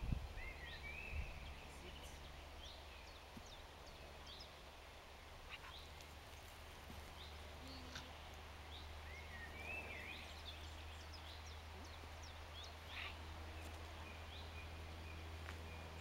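Small birds chirping in scattered short calls over a low, steady rumble, with two soft thumps in the first second or so.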